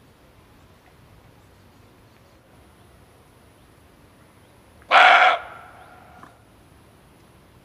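A male deer (kijang) barking once, a single loud, harsh call about five seconds in that lasts about half a second and trails off in an echo over the next second.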